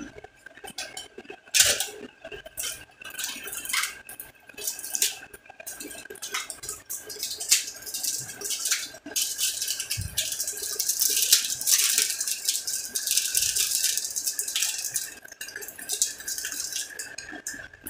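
Irregular clinks, clicks and rustling of small salon items being handled, densest in the middle, over a faint steady high-pitched hum.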